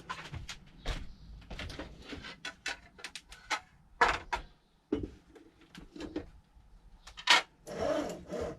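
A run of irregular clicks, knocks and rustles, with two sharper knocks, one about halfway through and one near the end, followed by a short rustling burst.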